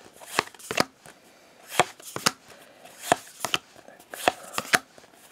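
Pokémon trading cards being flipped one at a time through a hand-held stack, each card snapping sharply against the others, often two snaps close together, about every second.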